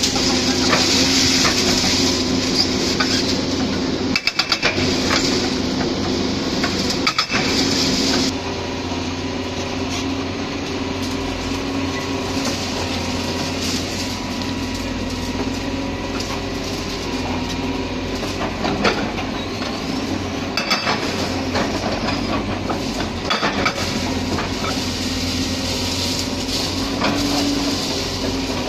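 Diesel engines of demolition excavators running steadily, with clattering and clinking of broken concrete and masonry rubble being struck and moved. The sound shifts abruptly about eight seconds in.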